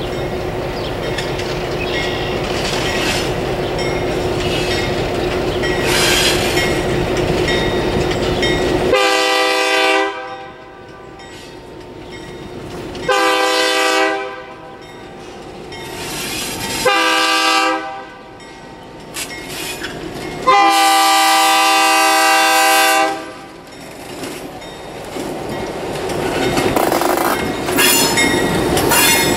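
Diesel locomotive approaching a grade crossing, its engine rumbling steadily. Its multi-note air horn sounds four blasts, three of about a second and a last one held longest: the grade-crossing warning. Near the end the engine and the wheels on the rail grow louder as the locomotive rolls into the crossing.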